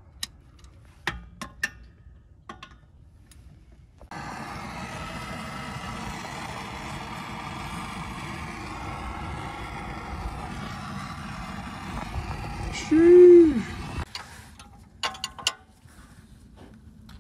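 Scattered clicks and knocks of hand tools, then from about four seconds in a Bernzomatic propane torch hissing steadily for about ten seconds as it heats a suspension part. Near the end of the hiss comes a short loud sound that rises then falls in pitch, followed by a few more tool clicks.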